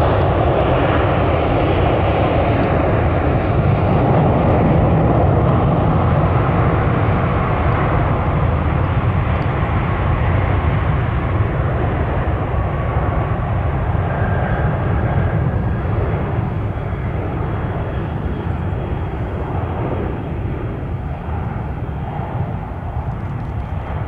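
Boeing 737's jet engines at takeoff thrust through the takeoff roll and climb-out: a loud, steady deep rumble and rush that slowly fades over the last several seconds as the jet climbs away.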